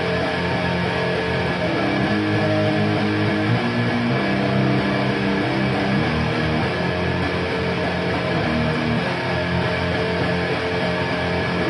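Distorted electric guitar through a Framus Cobra 100 W valve head and a Marshall MF400A cabinet loaded with Celestion G12K-100 speakers, playing heavy held chords that change every second or so.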